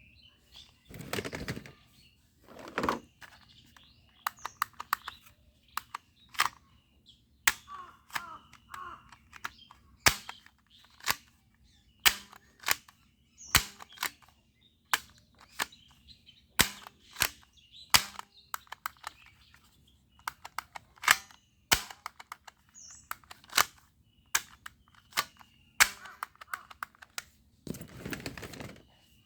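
Plastic toy guns being handled and worked: many sharp clicks and snaps from triggers and mechanisms at irregular intervals, some in quick runs of several, with occasional rustling.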